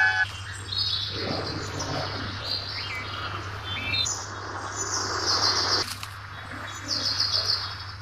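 Bird-like chirping: a run of short high chirps and whistles, some sliding up or down, over a steady low hum.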